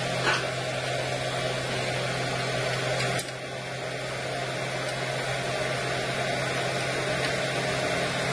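Steady whirring hum of the MakerBot Replicator 2's extruder cooling fan running, with a low drone under it. There is a click a little after three seconds in, after which the hum is slightly quieter.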